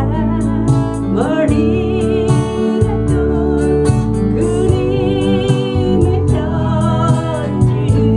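A woman singing a Korean folk song, holding notes with vibrato, accompanied by a strummed steel-string acoustic guitar.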